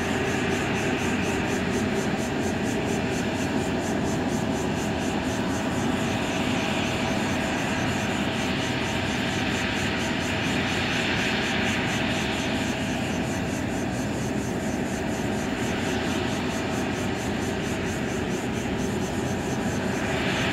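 Steady jet turbine noise around the airport apron: a continuous rush with a thin steady whine, swelling and easing a little a couple of times.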